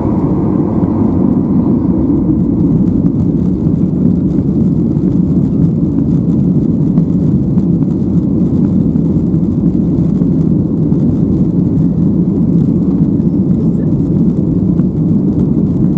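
Boeing 737-800's CFM56 turbofan engines at takeoff power, heard from inside the passenger cabin during the takeoff roll: a steady, loud low rumble.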